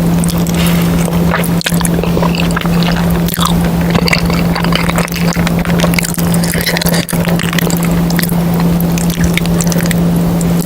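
Close-miked eating sounds: wet chewing and squishing of soft, sticky food with frequent crackling clicks, over a steady low hum.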